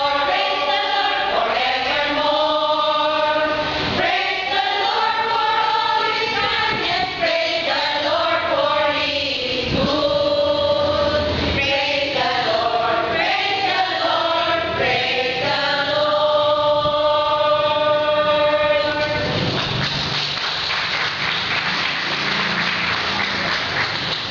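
Women's church choir singing, holding long sustained chords. About 19 seconds in the singing ends and a steady clatter of applause follows.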